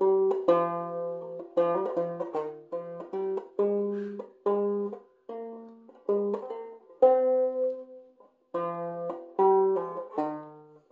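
Banjo in open G minor tuning (standard G with the second string lowered to B flat) playing a slow melody of single plucked notes and chords, each ringing and fading before the next. One louder note about seven seconds in rings longer.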